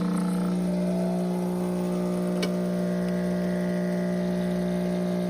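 Espresso machine's 15-bar pump running steadily with an even, unchanging hum, pushing water through the ground coffee as the shot brews. A faint tick about two and a half seconds in.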